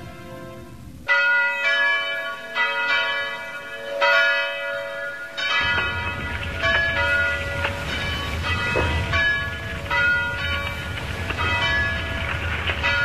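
Bells ringing in a peal: about a second in, struck tones at several different pitches start sounding a few times a second, each ringing on. About halfway through, a low steady rumble joins under them.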